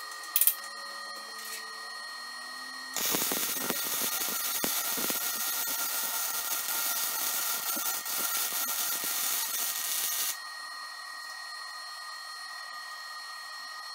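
Wire-feed welder arc crackling steadily as it welds a joint in steel tubing, starting about three seconds in and cutting off abruptly about seven seconds later.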